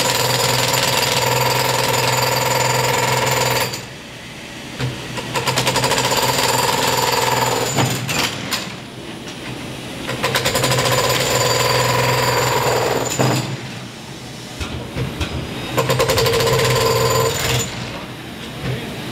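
Milwaukee MX Fuel 72 V cordless breaker hammering concrete in four runs of two to four seconds each, with short pauses between them.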